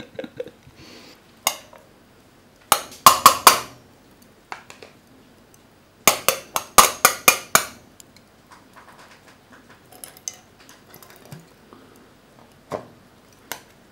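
Long metal chopsticks clinking against a small stainless steel bowl while mixing grated garlic into soy sauce: two flurries of rapid clinks, then a few single taps.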